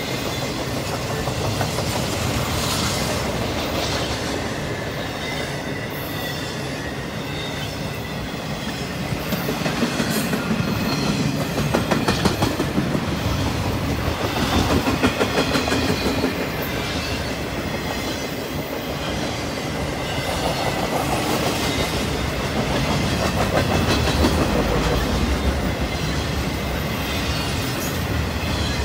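Intermodal freight train's cars rolling past close by, their wheels clicking rhythmically over the rail joints over a steady rumble, louder in stretches as trucks pass.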